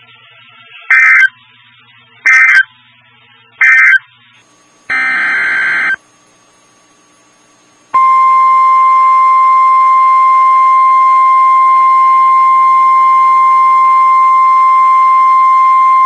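NOAA Weather Radio alert signals: three short buzzing bursts of SAME digital data a little over a second apart, closing the previous warning, then a longer data burst. About eight seconds in, the 1050 Hz warning alarm tone starts, a steady piercing tone that continues on.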